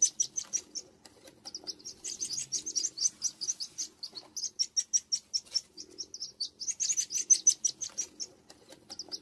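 A brood of ducklings peeping: many short, high peeps in quick, overlapping runs, with brief pauses between the runs.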